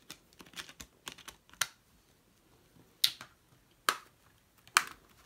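Clear plastic Blu-ray case being handled: discs pressed onto the case's hubs and the case snapped shut, giving a run of light plastic clicks, then three sharp snaps about a second apart.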